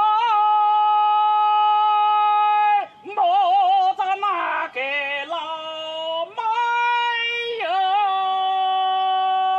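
A man singing a Hakka mountain song (shan'ge) solo and unaccompanied, in long held high notes, with a short break for breath about three seconds in.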